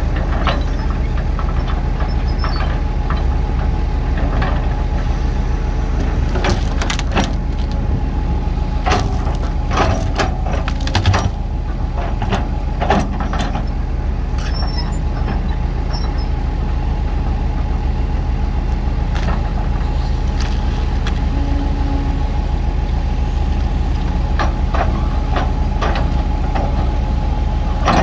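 Heavy machinery engine running steadily with a low hum, with scattered clanks and knocks in the middle and again near the end.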